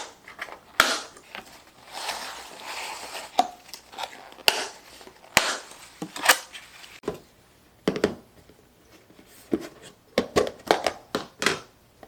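Irregular knocks, clicks and rustling of household items, containers and packaging being handled and set down, with a longer stretch of rustling about two seconds in and a quick run of knocks near the end.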